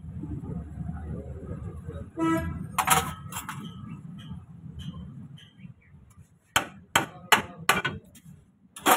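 Sharp metal-on-metal hammer blows on a pickup's front wheel hub as it is knocked loose from the axle. There are three quick blows about three seconds in, then a run of four about a third of a second apart, and one more near the end.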